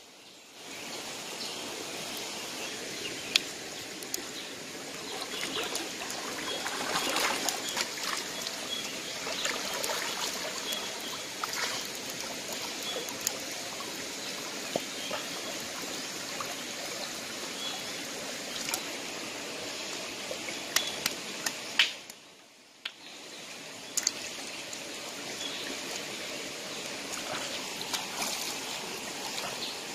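Shallow river water flowing and trickling over rocks, with occasional sharp clicks and knocks and a brief break about two-thirds of the way through.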